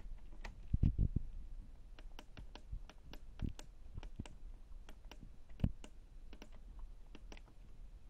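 Control-panel buttons of a Miele W5964 washing machine clicking under a finger as its programme menu is scrolled: an irregular run of short clicks, a couple of them louder, about a second in and again later.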